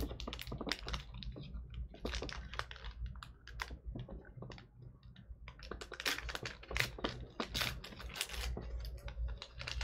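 A stubborn trading-card pack wrapper being worked and torn open by hand: a run of crinkles and sharp clicks, busiest from about six to eight and a half seconds in.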